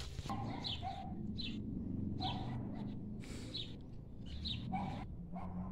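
Small cage birds chirping, short high calls repeated about once a second, over a low steady background hum.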